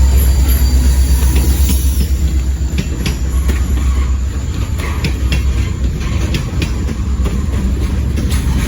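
Ontario Northland train rolling past: a steady heavy rumble with many sharp clicks as the wheels pass over the rails.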